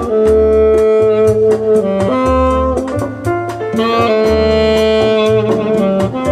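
Jazz recording played through B&W DM601 S3 bookshelf speakers driven by RCF AM-30 valve amplifiers: a held saxophone-like horn melody over a walking bass and a steady cymbal beat.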